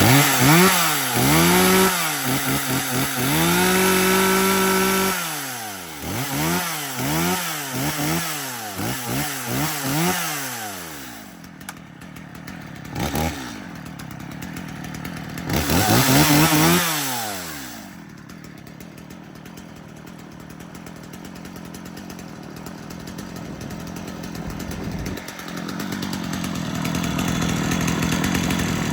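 Stihl MS250 two-stroke chainsaw, warmed up and off choke, being revved: the throttle is blipped again and again so the engine speed rises and falls about once a second, with a couple of longer revs. In between it drops back to a steady idle.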